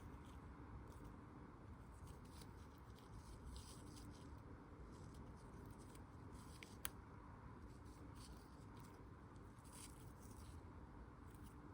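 Near silence with faint rustling handling noises and one sharp click about seven seconds in.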